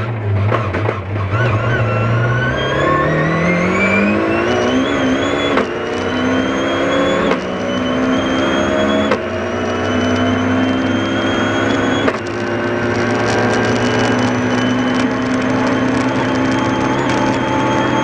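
BMW rally car's engine heard from inside the cabin, accelerating hard out of a slow corner through the gears. The engine note climbs and drops back at each upshift, about five and a half, seven, nine and twelve seconds in, then holds at high revs.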